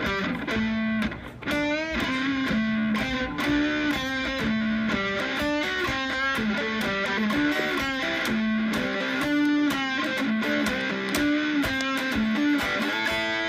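Background music: an instrumental led by electric guitar.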